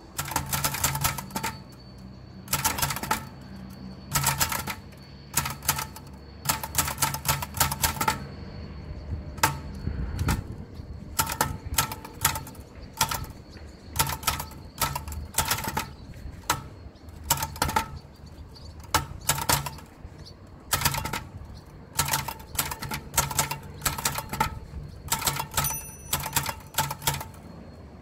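Typing on a 1935 Imperial 'The Good Companion' No. 1 portable typewriter: its typebars strike the platen in quick runs of sharp clacks, one run per word, with short pauses between them.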